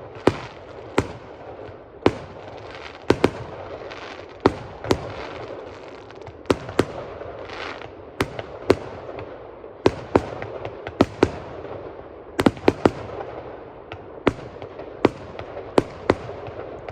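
Fireworks display going off: sharp bangs of bursting shells at irregular intervals, roughly one to two a second, over a continuous noisy background from the display, with a quick cluster of several bangs about three-quarters of the way through.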